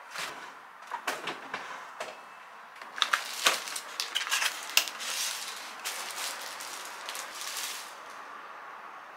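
Plastic food packaging being handled: bags crinkling and a clear plastic tub clicking, with light knocks as items are set down on a counter.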